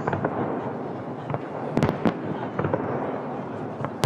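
Aerial fireworks bursting: a continuous dense crackle with several sharp bangs, the loudest a quick cluster about two seconds in and another right at the end.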